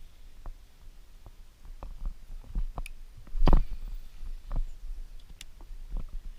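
Scattered clicks and light knocks of hands handling something close to the microphone, with one louder knock about three and a half seconds in, over a low rumble.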